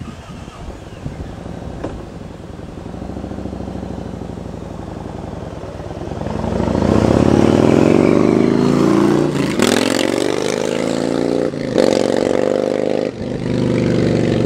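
Motorcycle V-twin (a Yamaha Star Raider through a Cobra Speedster Swept exhaust with wrapped and Hard Kore baffles) accelerating hard as it nears, its pitch rising through each gear, with short breaks as it shifts up two or three times.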